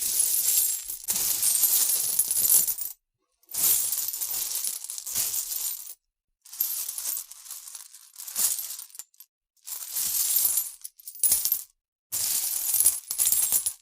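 Sound effects playing one after another: five separate bursts of bright, dense jingling and rattling clinks, each two to three seconds long, with short silent gaps between them.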